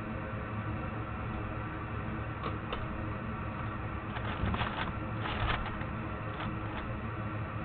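Light clicks and taps of tools working on an Xbox One controller's circuit board while a new analog stick is soldered in: a couple about two and a half seconds in, then a short cluster between about four and five and a half seconds in. A steady low hum runs underneath.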